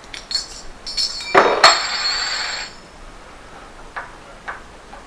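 Metal door-handle hardware clinking and knocking together as a lever handle and spindle are fitted onto a mortice lock: a few light clicks, then two loud metallic strikes about a second and a half in that ring on briefly, and a couple of faint clicks near the end.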